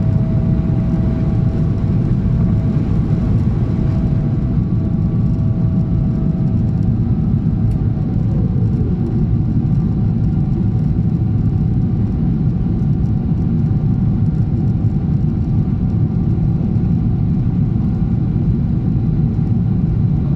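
Cabin noise of a Boeing 777-300ER climbing out after takeoff, heard from inside the cabin: a steady, loud roar of its GE90 jet engines and rushing air. A faint whine falls in pitch about eight seconds in.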